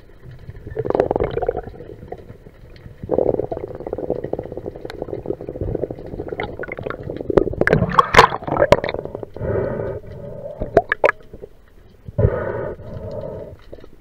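Water sloshing and gurgling around a spearfisher's camera as he swims up, with a burst of splashes as he breaks the surface about eight seconds in, the loudest part. After that come rhythmic breaths through the snorkel, about one every two and a half seconds.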